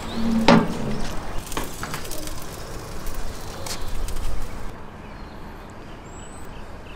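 Barrel smoker's steel lid being opened: a short low creak, then a sharp metal clank about half a second in, followed by a few lighter clicks.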